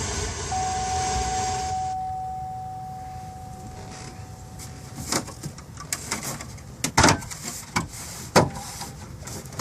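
Plastic interior trim being worked loose under a 2005 Cadillac Escalade's steering column: a run of sharp clicks and knocks in the second half. Before them a steady faint tone fades out over a few seconds.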